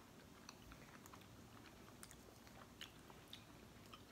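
Faint chewing and small mouth clicks of people eating pickled deviled eggs, scattered over near-silent room tone.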